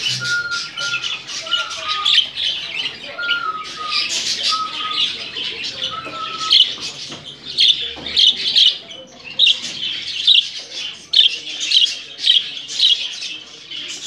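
Budgerigars chattering and squawking, a steady run of short, sharp calls about twice a second, with a few short, even whistled notes in the first half.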